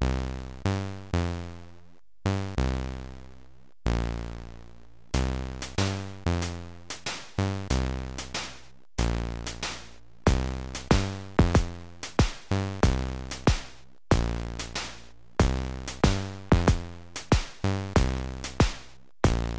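Synthesized electronic music from a 4 KB Amiga intro: deep synth-bass notes that each die away, sparse for the first few seconds, then a busier beat with sharp drum hits that stops briefly a few times.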